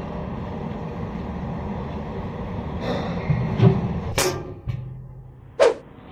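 Sheet-metal school locker being shut: several metallic knocks and bangs as the sketchbook goes in and the door closes, the loudest a little past four seconds in and one more clank near the end, over a steady low rumble.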